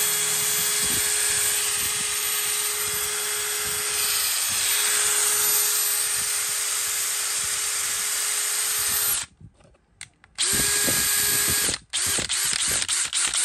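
Bosch GSB18V-535C 18 V brushless cordless drill running free at a steady speed for about nine seconds, then stopping. After about a second's pause it runs again briefly, then in a string of short stop-start blips near the end.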